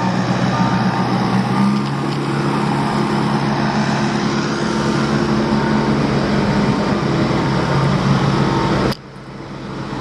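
Dump truck's diesel engine running loud and steady as it backs up, with its backup beeper sounding at intervals. The sound drops off abruptly about nine seconds in.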